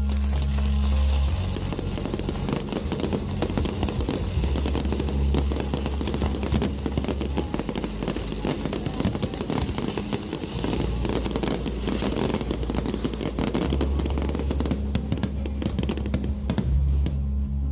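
Fireworks crackling and popping in a dense, unbroken stream over loud music with a heavy bass line.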